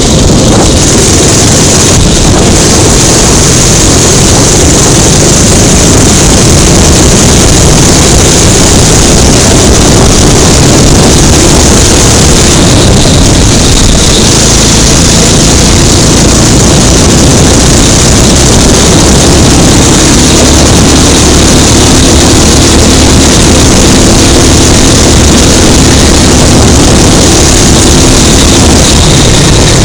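Go-kart engine running steadily as the kart laps the track, very loud on an onboard microphone.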